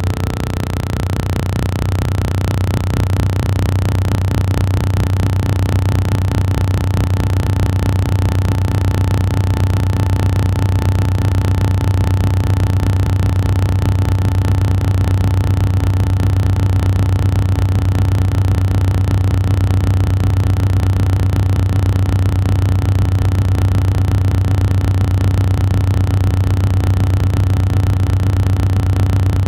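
A loud, steady low-pitched hum with a fainter higher tone over it.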